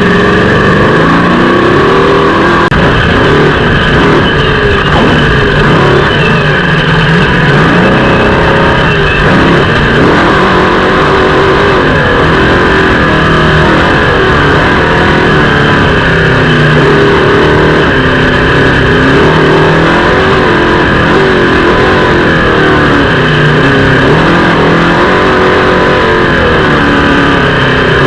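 Off-road trophy truck's engine running hard without a break, revving up and down again and again.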